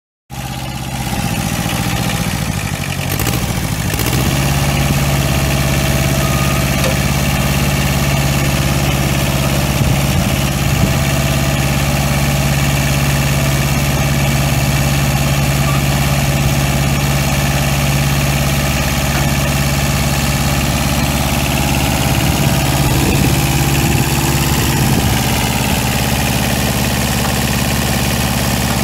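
Kubota Z751 two-cylinder diesel engine of a compact tractor running, its note shifting over the first few seconds and then holding a steady idle.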